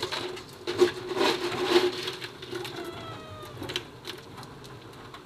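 Cats meowing with short, falling cries about halfway through, after a couple of seconds of rustling and clatter.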